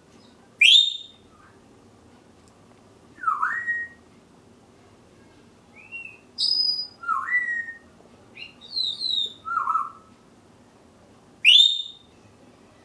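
Congo African grey parrot giving a string of loud whistles, some dipping then rising in pitch. A sharp, piercing whistle sweeping upward comes about half a second in and again near the end.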